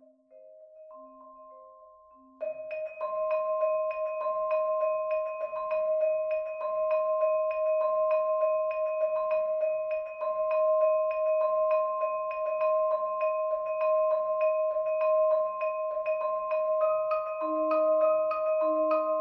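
Marimba and vibraphone playing a minimalist piece. It opens with soft, sparse ringing notes; about two and a half seconds in, a loud, evenly repeating mallet pattern of about three or four strokes a second begins over held tones. Near the end, new lower notes join.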